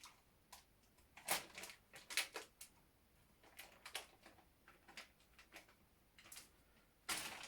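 Scattered faint clicks and rustles of ASP Model 100 handcuffs and a chocolate bar wrapper being handled while the wrapper is worked into the cuff as a shim, with a denser burst of handling near the end.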